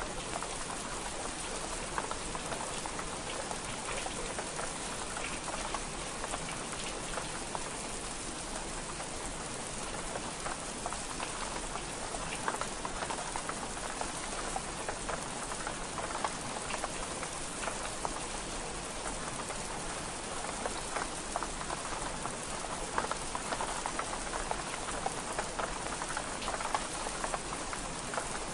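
Steady rain pattering on window glass, a dense even hiss of drops with scattered sharp ticks all through.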